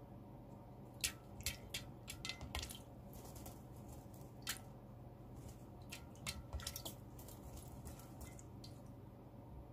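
Northern hawk owl bathing in a shallow enamel dish of water: small splashes and drips in quick clusters, about a second in, once more near the middle, and again a little later.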